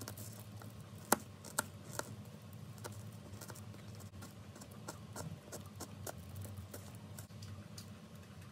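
Small knife cutting a small onion: light, irregular clicks and taps, with three sharper clicks in the first two seconds and fainter ones after, over a low steady hum.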